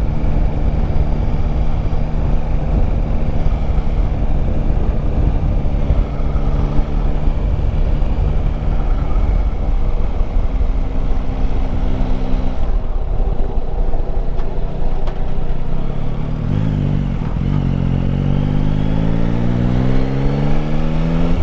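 Yamaha Tracer 9 GT's 890 cc three-cylinder engine running at steady cruising revs, with a low wind rumble. The revs drop off about two-thirds of the way through, then climb again near the end as the bike accelerates.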